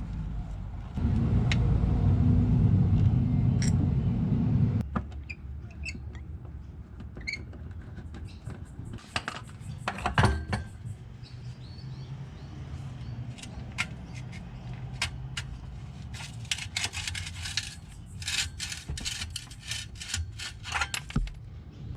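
For the first few seconds a low rumble; then metal tools and bolts clinking and scraping as a worn transmission mount is unbolted and pulled out from under a car, with a busier run of clicks and scraping near the end.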